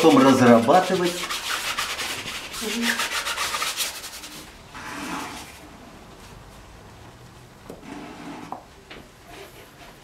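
Palette knife rubbing and scraping oil paint across a stretched canvas in rapid strokes. It drops to softer, scattered scraping after about four seconds.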